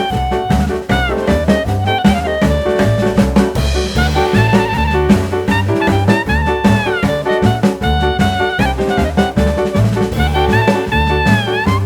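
Upbeat jazz background music: saxophone and brass melody over a walking bass line and drum kit.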